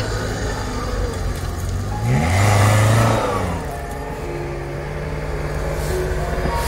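Suzuki Jimny's engine revving as the 4x4 pushes through deep snow: a steady low running note, then a louder rising surge about two seconds in that falls back after a second or so as it pulls away.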